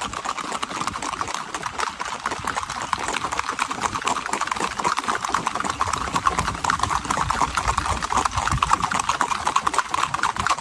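Hoofbeats of a group of gaited horses on an asphalt road: a dense, rapid, even clatter of many hooves striking the pavement.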